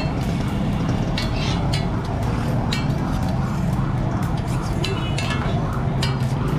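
A long steel knife clinking and scraping against a steel griddle while cutting a large bun kabab: a dozen or so sharp metallic strikes with a short ring, at uneven intervals. A steady low hum runs underneath.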